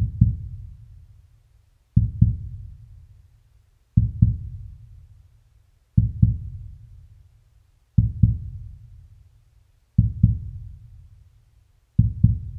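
Heartbeat sound effect: a deep double thump, 'lub-dub', about every two seconds, each one dying away, with three quicker thumps near the end.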